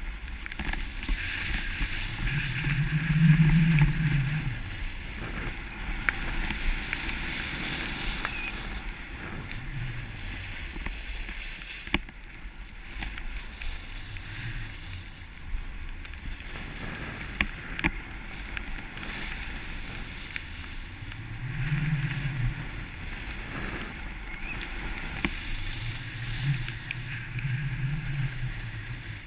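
Skis sliding and scraping over groomed snow as a skier turns down the piste, a steady rushing noise that swells every few seconds with the turns, mixed with wind over the camera's microphone.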